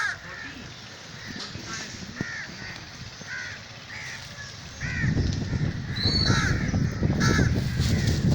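Crows cawing repeatedly, short harsh calls one after another. About five seconds in a loud low rumble joins and stays to the end.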